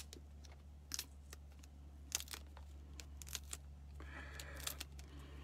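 Faint crinkling, rustling and light clicks of food packaging and containers being handled while a salad is made up, with a longer stretch of rustling near the end. A steady low hum sits underneath.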